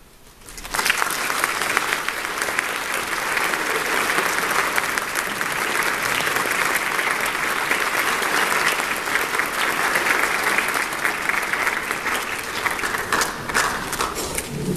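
Audience applauding, starting suddenly about a second in, holding steady, and thinning out near the end.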